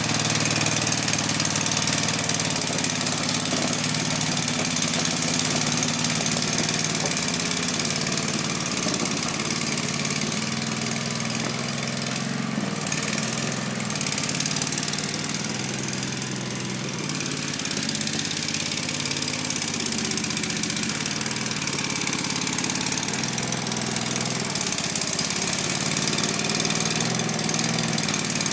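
Kanga mini loader's engine running steadily under load as it drives its front rake attachment through loose soil, with a constant hiss over the engine hum. The sound eases off a little for a few seconds around the middle.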